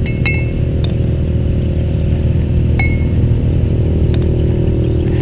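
A metal spoon clinking a few times against a coffee jar and a mug as instant coffee is spooned out; two of the clinks ring briefly. A steady low rumble runs underneath.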